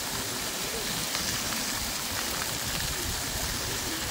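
Ground-level fountain jets spraying and splashing onto wet paving stones, a steady hiss of falling water.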